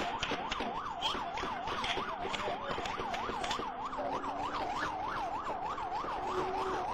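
Police car siren in yelp mode, its pitch rising and falling rapidly, about four times a second, during a high-speed pursuit.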